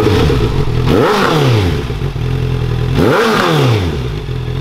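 Motorcycle engine idling through an SC-Project SC1-R slip-on exhaust with its dB-killer still fitted, blipped twice: about a second in and again about three seconds in, each a quick rise and fall in pitch, as revs are given for a sound-level measurement at the tailpipe.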